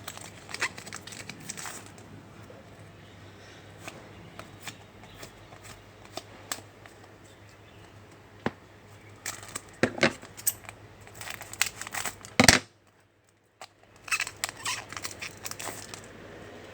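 Trading cards and their pack wrapper being handled and flipped through: scattered light clicks, rustles and crinkles, with a sharp loud snap about twelve seconds in followed by a brief moment of silence.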